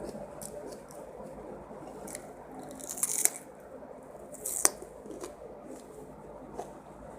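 A person eating spicy fried rice with petai beans, with soft wet chewing and a few sharp clicks, the loudest about three and about four and a half seconds in.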